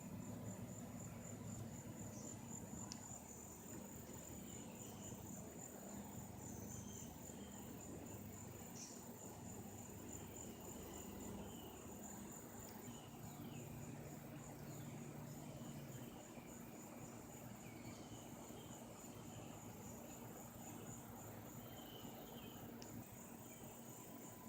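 Faint outdoor ambience: a steady, high, pulsing insect trill, with a few short higher chirps scattered through it.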